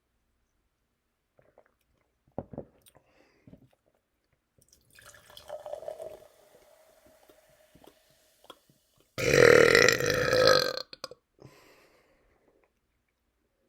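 A man's long, loud belch, brought up by carbonated seltzer, lasting about a second and a half, about nine seconds in. A few faint clicks and a quieter, drawn-out sound come before it.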